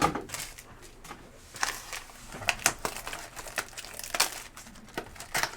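Trading-card packaging being handled at close range: irregular crinkling of wrapper and plastic, with scattered light taps and clicks.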